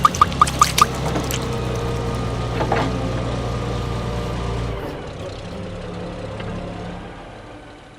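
Vehicle engine running with a steady low drone that cuts off about five seconds in, with five quick high beeps in the first second.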